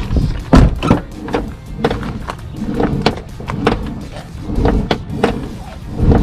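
1998 Honda CR-V door being swung open and shut again and again, its check arm and hinges giving sharp thunks and pops. The popping persists after greasing, and the owner puts it down to possible wear in the check-arm shims or retainers or the hinges. Background music plays underneath.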